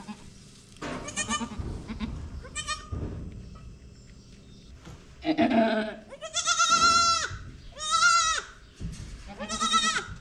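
Goats bleating: a series of about six wavering bleats, some low and some high-pitched, the longest and loudest in the second half.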